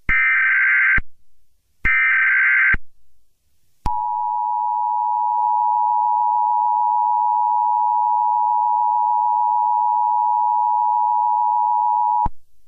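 Emergency Alert System broadcast tones. The last two of the three buzzy digital SAME header data bursts, each about a second long. Then the steady, piercing two-tone EAS attention signal sounds for about eight seconds and cuts off abruptly, the signal that announces an emergency alert message.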